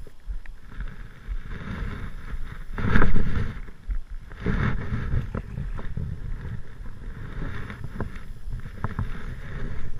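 Wind buffeting a GoPro's microphone: a low rumble that comes and goes in gusts, loudest about three seconds in, with a few faint clicks near the end.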